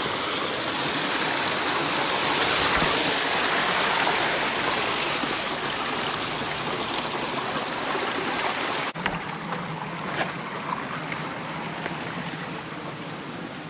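Steady rushing of a stream, a loud even hiss of running water. About nine seconds in it cuts off suddenly to a quieter background with scattered small clicks.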